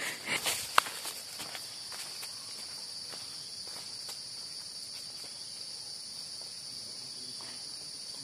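Steady high-pitched insect chorus, with a few footsteps on leaf litter in the first second.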